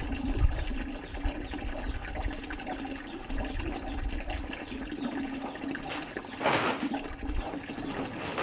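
Water running steadily, with a brief louder swish about six and a half seconds in.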